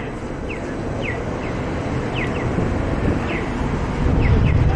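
City street traffic noise with wind rumbling on the microphone, growing louder toward the end. Short, high, falling chirps repeat irregularly over it.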